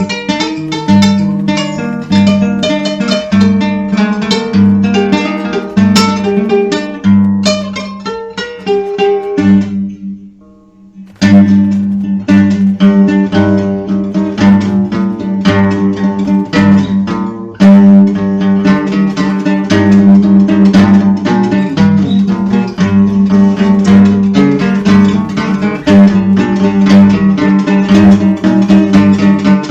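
Dark folk music on plucked and strummed acoustic guitar, with rapid notes over a steady low drone. About ten seconds in, the playing drops out almost completely for a second or so, then comes back in at full level.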